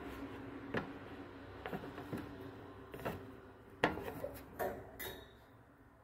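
Irregular sharp clicks and light taps in a budgerigar cage with a wire floor grille, about seven in all, the loudest just under four seconds in, over a low steady hum that fades near the end.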